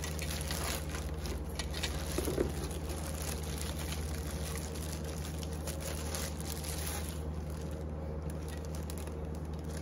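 Clear plastic bag crinkling and rustling as metal broom handle sections are handled and pulled out of it, dying down about two-thirds of the way through. A steady low hum runs underneath.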